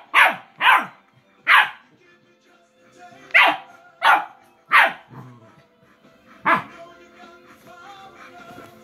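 A dog barking in short, sharp single barks, about seven of them with a second or so between, the last about six and a half seconds in. Faint music plays underneath.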